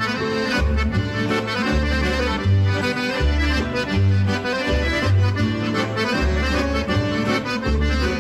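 Accordion (gaita) music in the gaúcho style, with a bass line alternating between two low notes under the melody.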